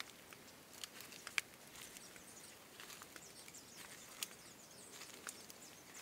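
Faint footsteps on a dry dirt path strewn with leaf litter and twigs: irregular sharp crackles and clicks, a few of them louder.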